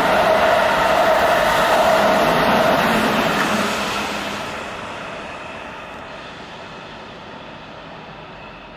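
Keihan electric commuter train passing through at speed: loud rolling rush of wheels on rail with a steady tone running through it. Near the four-second mark it starts to fade as the train moves away, dying down to a low background level.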